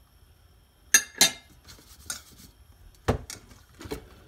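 Metal spoon clinking and scraping against a stainless-steel bowl as oil is spread over its bottom. Two sharp ringing clinks about a second in, then lighter scrapes and duller knocks.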